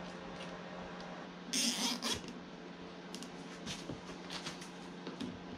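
Hands handling small plastic parts and packaging on a tabletop: a short rasping burst about a second and a half in, then scattered light clicks and rustles, over a steady low hum.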